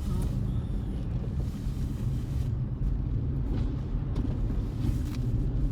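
Steady low rumble of a moving car heard from inside the cabin: engine and tyres on a snowy road, with a few faint clicks.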